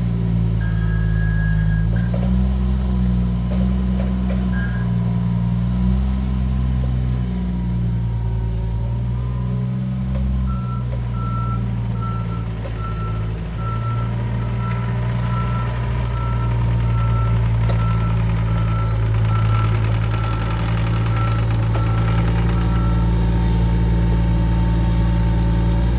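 John Deere 26G mini excavator's diesel engine running steadily, with its travel alarm beeping about once a second from about ten seconds in until a few seconds before the end as the machine tracks along.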